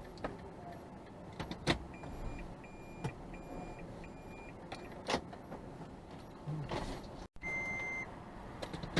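Car cabin sounds: several sharp clicks and knocks, and an electronic chime beeping four times about half a second apart, then one longer beep after a brief dropout near the end.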